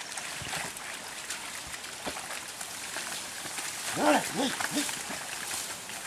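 Bullocks and a wooden plough wading through flooded paddy mud, a steady sloshing of water and squelching mud. About four seconds in, a voice gives four short rising-and-falling calls in quick succession, the loudest sounds.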